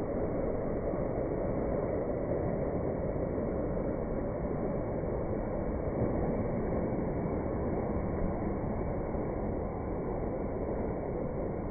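Steady rush of churning water on a water-park rapids river, an even noise without distinct splashes.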